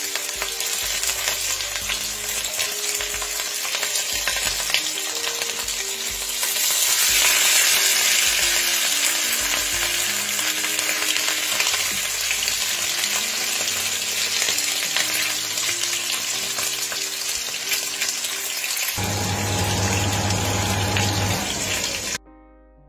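Red snapper steaks frying in hot oil in a steel pan: a steady, dense sizzle that gets louder about six seconds in, with faint background music underneath. Near the end it cuts off suddenly to quiet piano music.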